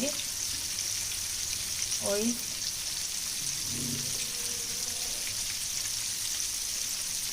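Flour-coated chicken pieces deep-frying in medium-hot oil: a steady sizzle with fine crackling.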